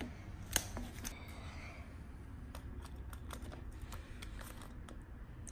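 Faint, scattered light clicks and taps of hard plastic as a toy feeding spoon is worked into a Baby Alive doll's plastic mouth, thickest in the middle of the stretch.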